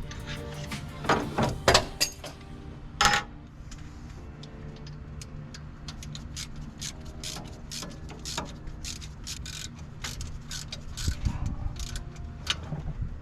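Background music with sharp metallic clanks and clicks of hand tools working on the engine, the loudest knocks in the first few seconds.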